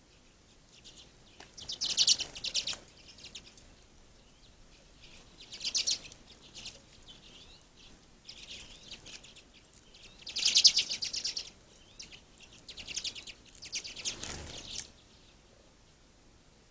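Small songbirds twittering at a feeder in about five short bursts of rapid, high-pitched chattering notes.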